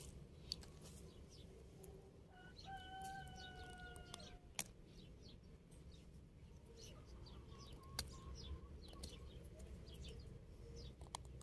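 Faint outdoor ambience in which a distant rooster crows once, a single held call of about two seconds, a couple of seconds in. Small birds chirp faintly throughout, and a few sharp clicks stand out, the loudest near the middle.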